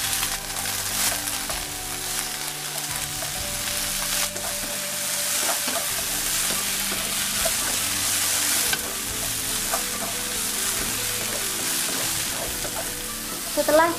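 Yardlong beans sizzling in hot oil in a wok as they are stir-fried and tossed with a wooden spatula that scrapes through the pan, with an occasional sharp knock.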